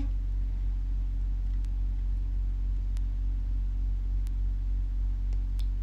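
Steady low background hum with a few faint clicks spread through it.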